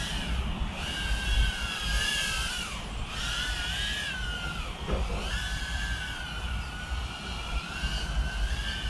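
BETAFPV Meteor 65 1S tiny whoop in flight: its four small brushless motors and props whine, the pitch rising and falling with the throttle. The whine drops sharply about halfway through, then climbs back up.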